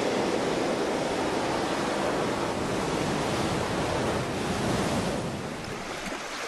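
Ocean surf: waves breaking and washing in a steady rush that eases off slightly near the end.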